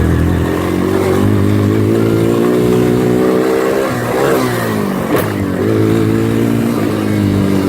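Small ATV engine running under throttle, its pitch climbing, dropping off about four seconds in, then climbing again. A sharp click just after five seconds.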